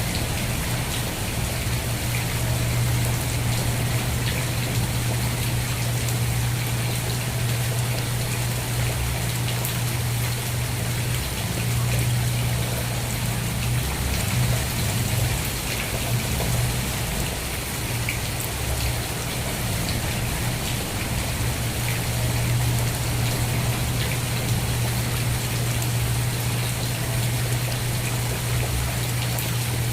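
Steady rain falling, an even hiss with individual drops ticking, over a constant low hum.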